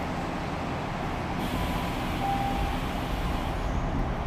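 Steady hum and hiss inside a Tokyu 5050 series train car standing at a station, with its air conditioning running, and a short faint tone a little past two seconds in.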